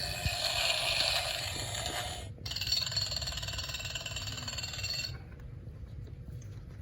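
Recorded road roller rumble played from a sound book's small, tinny speaker, in two runs of about two and a half seconds each with a short break between.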